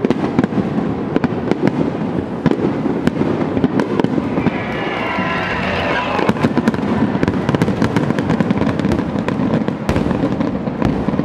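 Aerial firework shells bursting in quick succession: a dense, continuous barrage of bangs over a low rumble.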